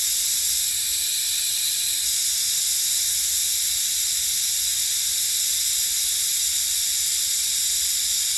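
Leftover compressed natural gas venting from a car's CNG cylinder through its degassing pipe: a steady, high-pitched hiss.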